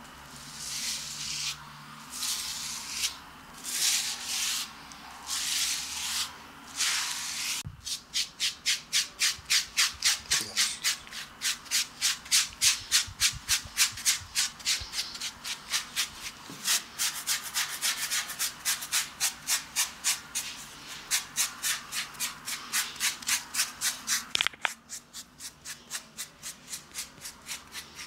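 Bristle brush scrubbing a lathered, hairy chest in scratchy strokes. The strokes come about once a second at first, then from about eight seconds in turn quick and even, three to four a second, and grow softer near the end.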